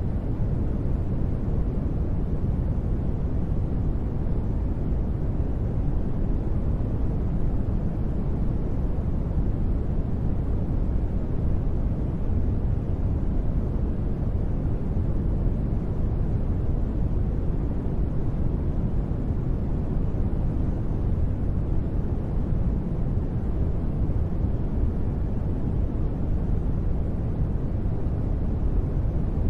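Continuous synthetic sleep noise, steady and unchanging: a deep, rumbling hiss with most of its weight in the bass and little treble.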